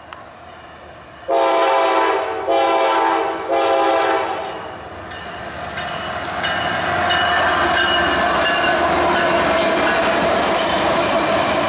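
Air horn of a GE ES44AH diesel locomotive sounding three blasts in quick succession, each a steady multi-note chord about a second long. About two seconds later the locomotives and cars pass close by with a loud, steady rumble of engine and wheels on the rails.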